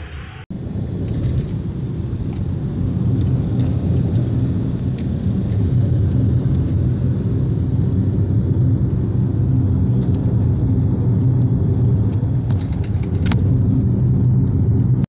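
Steady low rumble of a moving car heard from inside the cabin. It begins abruptly about half a second in, with a faint click near the end.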